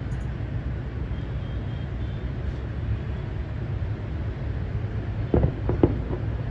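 Fireworks display: a steady low rumble of distant shell bursts, with two sharper bangs a little over five seconds in, then the sound cuts off abruptly.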